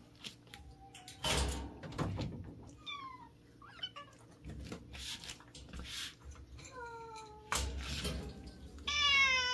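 A domestic cat meowing several times, each meow falling in pitch, with louder bursts of rustling handling noise between the calls.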